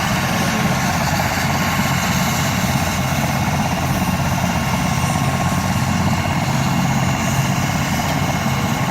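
Medical helicopter running steadily on the ground, its engine and rotor giving an even, unbroken drone.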